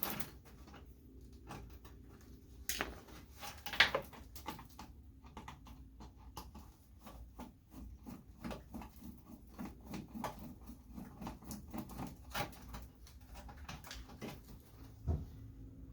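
Hand tools working on the old car's front bodywork fixings: scattered clicks, taps and scrapes, with a sharp knock about four seconds in and another near the end.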